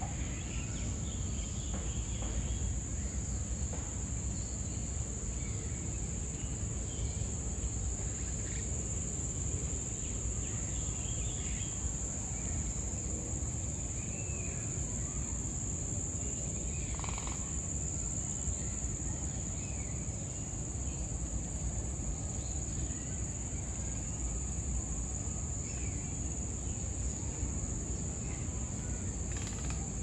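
A steady high-pitched insect drone, with short bird calls now and then, over a low steady rumble.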